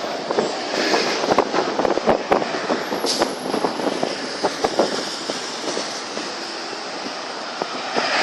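A car driving at speed: a steady rush of road and wind noise, with many sharp clicks and rattles throughout.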